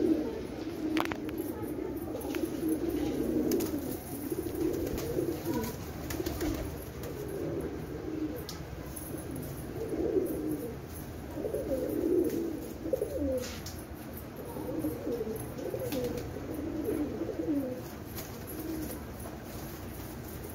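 A flock of domestic pigeons cooing, many overlapping voices forming a continuous low warbling chorus, with a few sharp clicks scattered through it.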